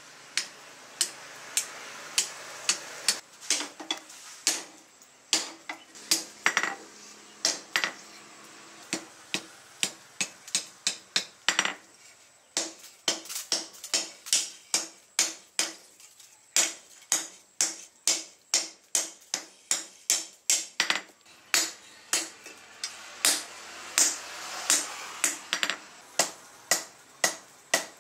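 Hand hammer striking red-hot steel rebar on a steel post anvil: a steady run of sharp blows, about two a second with a few short pauses, some with a brief metallic ring.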